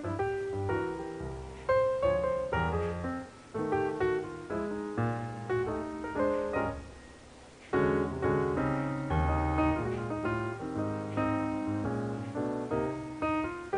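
Background piano music: struck notes and chords in a flowing melody, dropping to a brief lull about seven seconds in before picking up again.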